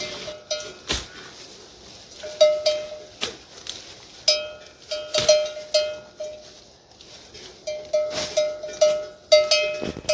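Metal bells hung on the necks of herded livestock, clanking irregularly as the animals move. The bells ring in loose clusters of several strikes, with short pauses between the clusters, and a few sharp knocks fall among them.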